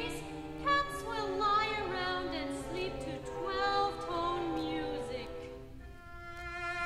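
A soprano sings an art song with vibrato over a small string ensemble of violins, viola and cello. The voice drops out near the end, leaving the strings holding a chord.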